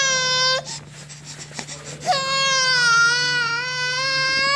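Infant letting out long, high-pitched squeals: a short one at the start and a longer, held one from about two seconds in, open-mouthed and grinning.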